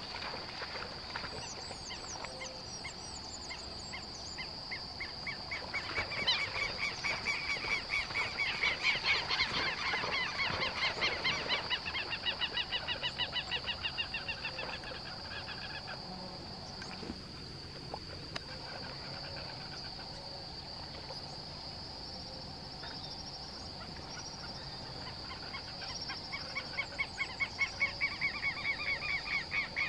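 Birds giving loud, harsh calls in rapid repeated series, in two bouts: one starting about six seconds in and another near the end. A steady high-pitched whine runs underneath throughout.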